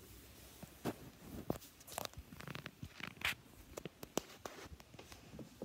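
Handling noise from a phone camera being picked up and moved: irregular clicks, taps and short rustles close to the microphone.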